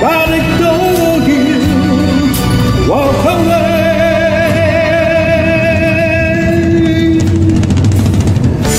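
Karaoke singing over a music backing track: a lone voice slides up about three seconds in and holds a long note with vibrato.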